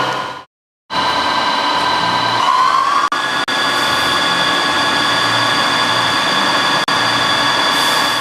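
CNC lathe running: a steady machine whine with several held tones over the hiss of coolant spray. The whine glides up in pitch about two and a half seconds in. The sound breaks off briefly for under half a second shortly after the start.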